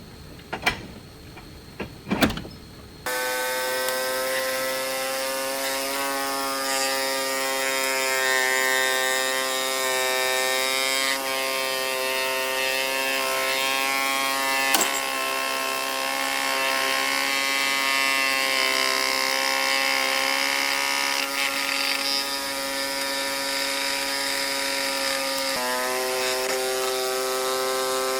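A few sharp knocks, then a power tool's motor starts about three seconds in and runs steadily with a buzzing whine. Its tone shifts slightly near the end.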